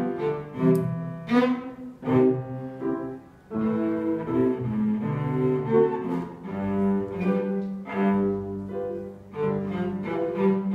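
Cello playing a classical dance piece, accompanied by piano, with a short break in the phrase about three and a half seconds in.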